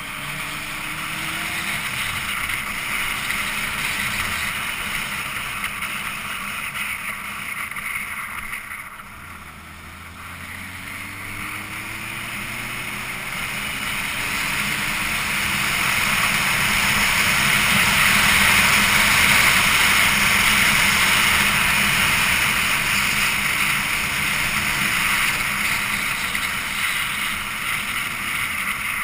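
Wind rushing over the microphone of a motorcycle-mounted camera at road speed, with the motorcycle's engine note rising and falling faintly underneath. The wind dips briefly about a third of the way in, then builds to its loudest past the middle.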